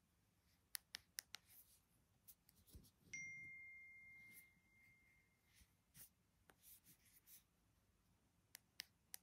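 Faint clicks and taps of fingernails and fingers handling a smartphone's glass and metal frame, with one clear ringing ding about three seconds in that fades over about two seconds.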